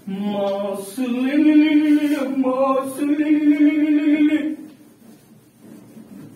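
A man's voice singing a few long held notes without words, stepping up in pitch after the first and stopping about four and a half seconds in.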